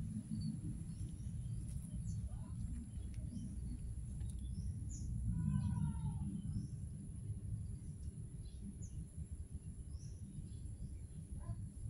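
Outdoor yard ambience: small birds chirping now and then over a low rumble on the microphone, with a steady high-pitched tone in the background. About halfway through comes one brief pitched call.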